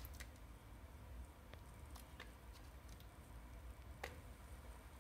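Faint scattered clicks and taps from a plastic Play-Doh tub being handled and opened, with a sharper click about four seconds in, over a low steady room hum.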